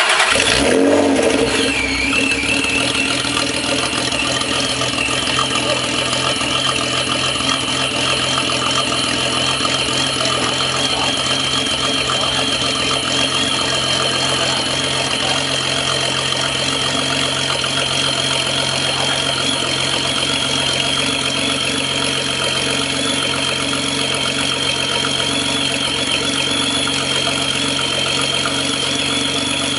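Honda NSX V6 engine catching right at the start, revs flaring briefly and then settling into a steady idle through an aftermarket Taitec exhaust, with a steady high whine over the idle.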